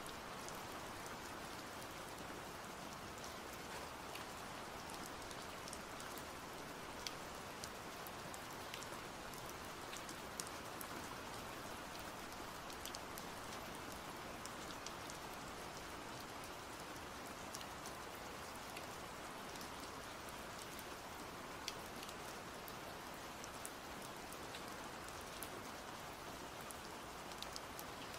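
Steady rain falling: an even hiss with scattered sharp drop ticks on a surface.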